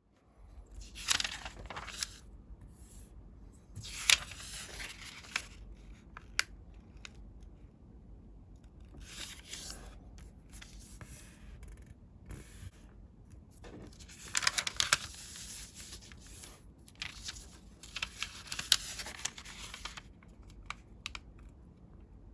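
Colored paper being folded and creased by hand: crisp rustling in several bursts, with sharp clicks and quieter handling between.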